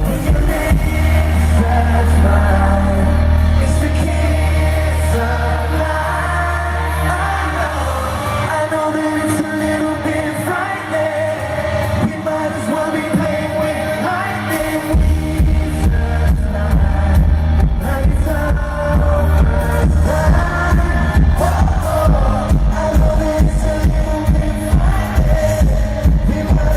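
Live pop music from a boy band's concert, recorded from the audience: male vocals over an electronic pop backing with a heavy bass beat. The bass drops out about eight seconds in and returns about seven seconds later.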